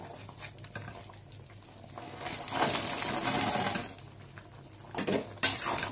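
Fried vegetable Manchurian balls tipped from a bowl into a metal kadhai of boiling gravy, a wet splashing hiss for a couple of seconds. Near the end comes a sharp clink of a utensil against the pan.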